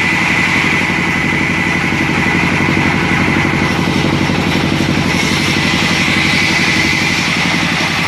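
A sawmill's large band saw running steadily: a continuous engine-like drone from the drive with a steady high whine from the blade on top.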